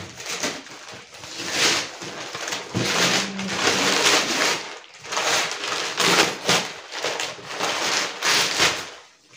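Brown kraft packing paper and cardboard flaps rustling and tearing in repeated irregular bursts as a parcel is unpacked by hand.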